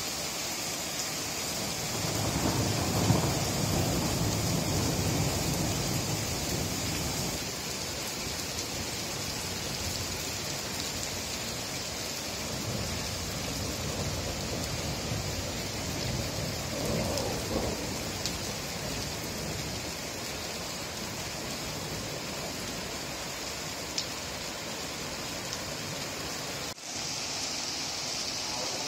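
Heavy rain mixed with small hailstones pelting a wet street and paving in a steady hiss. Thunder rumbles low about two seconds in, and again roughly halfway through.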